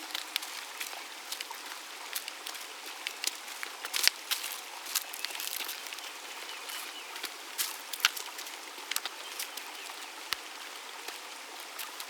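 Trickling water with many sharp, scattered drips, a stream-like nature recording used in an electronic track.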